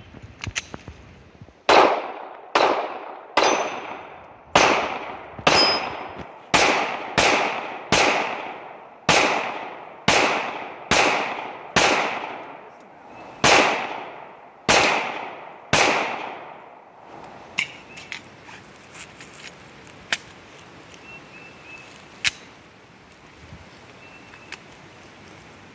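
A 9mm Glock pistol fired about sixteen times at a steady pace over roughly fourteen seconds, each shot trailing a long echo. A few light clicks follow the string of shots.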